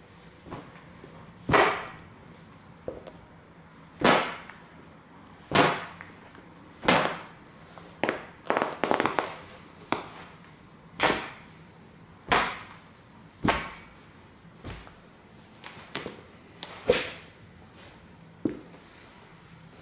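Rubber-soled Nike Air Force 1 sneakers stomping repeatedly on a stuffed plush dinosaur on a wooden floor: about fourteen sharp thuds, one every second or two, with a quick flurry of smaller ones a little past the middle.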